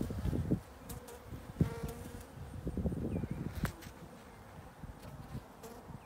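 Honeybees buzzing at an open hive, with one bee's hum briefly close about two seconds in. Low rumbles and a couple of sharp knocks, the louder one about three and a half seconds in.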